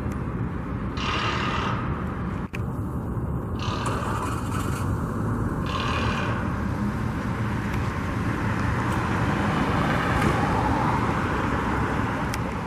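Steady road traffic noise, with a few cars passing by.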